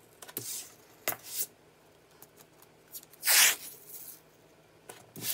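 Masking tape being pulled off the roll in short rips and pressed down onto wax paper, with the longest and loudest rip about three seconds in.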